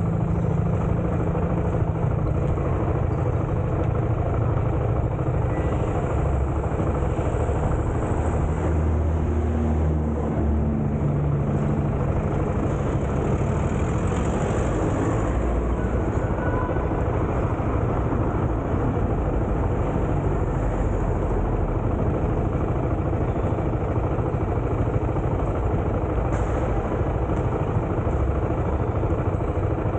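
A motor vehicle running continuously. Its low engine hum shifts in pitch now and then over a steady noise of road and air.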